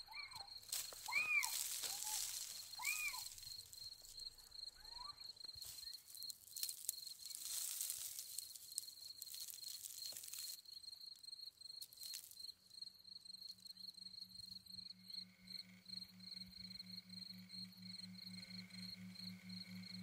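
Night forest soundscape: a steady high insect trill, a few short arching chirp calls in the first seconds, and bursts of rustling hiss. About two-thirds of the way through, a low pulsing hum comes in and carries on under the trill.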